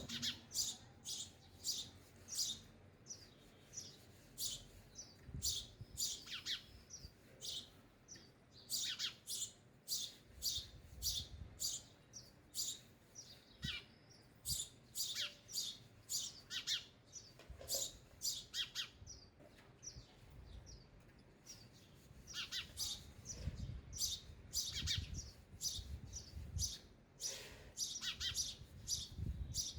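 House sparrows chirping: a long run of short, high chirps, several a second, with a lull of a couple of seconds in the middle.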